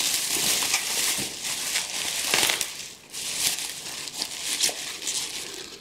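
Plastic bubble wrap crinkling and rustling as hands pull it open, louder for the first two and a half seconds and then softer, with small crackles.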